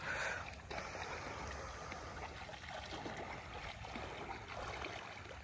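Faint, steady sound of shallow lake water swishing and lapping as a person wades slowly through it.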